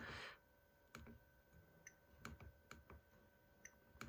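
Faint, irregular clicks, about six of them, over a low steady electrical whine: thermostat controls being operated to change the set point.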